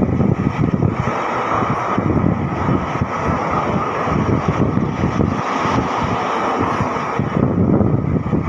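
Hazarduari Express passenger train running at speed through a station without stopping, heard from an open coach doorway: a loud, steady rumble with a rapid, uneven rattle of the wheels on the track.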